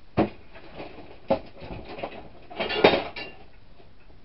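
Hard objects clattering as they are moved and set down while tidying up: a sharp knock, another about a second later, then a longer rattling clatter about three seconds in.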